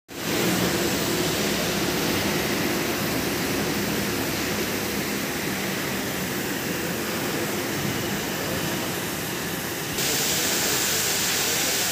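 Steady hissing noise of a CNC profile gas cutting machine's oxy-fuel torch cutting steel plate. The hiss grows brighter and a little louder about ten seconds in.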